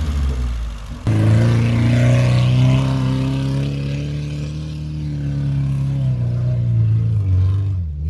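Lada Niva's engine revving hard under load as the 4x4 drives through loose sand. The engine note jumps up about a second in, holds high and steady, then eases off near the end.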